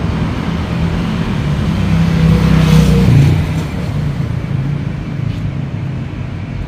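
A motor vehicle passing by, its engine growing louder to a peak about three seconds in, then fading away.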